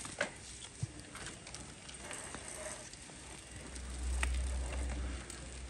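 A small bicycle being handled and set off on, with faint clicks and knocks from the bike. A low rumble comes in past the middle.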